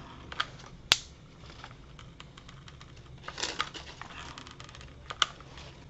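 Quiet handling noises from a hot glue gun and crepe paper: scattered small clicks, a sharp click about a second in and two more near the end, and a brief rustle of crepe paper about three and a half seconds in.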